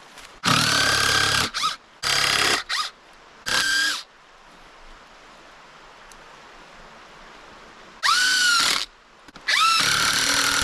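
Chainsaw revved in five short bursts, the pitch climbing sharply at the start of the last two, and dropping back to a quiet idle between them.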